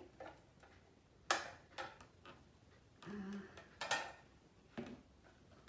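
The detachable cover of a hot water dispenser's drip tray being handled and fitted back onto the tray, giving several sharp clicks and knocks a second or so apart.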